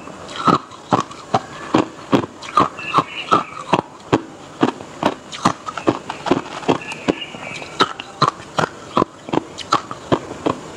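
Hard ice being chewed close to a lapel microphone: sharp, crisp crunches about two or three times a second.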